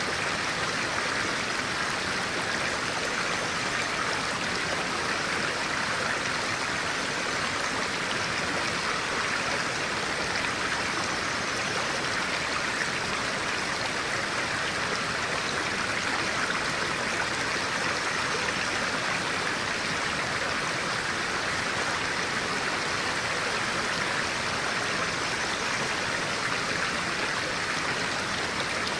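A stream of clear water flowing steadily: an even, unbroken rush of water.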